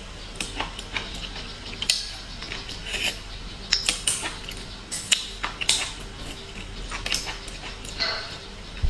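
A person eating seafood close to the microphone: irregular slurps and sucking sounds mixed with sharp clicks of shells and utensils, busiest in the middle.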